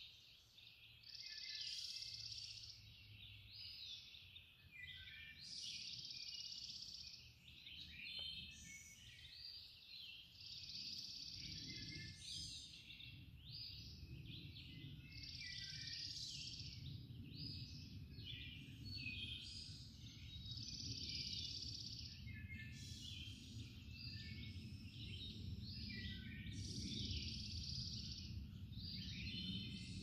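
Songbirds singing at dawn, several birds with short chirping phrases following one another every second or two. A low steady rumble comes in about eleven seconds in and stays under the song.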